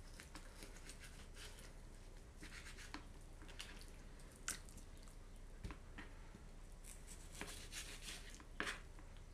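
Knife cutting raw chicken thigh meat on a plastic cutting board: faint, irregular taps and scrapes of the blade against the board, with soft handling of the wet meat.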